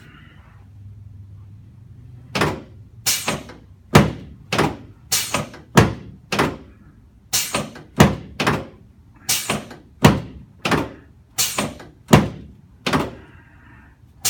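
About twenty sharp thunks in quick, uneven succession from chiropractic adjusting along the back of a patient lying face down. They start about two seconds in and come roughly every half to three-quarters of a second.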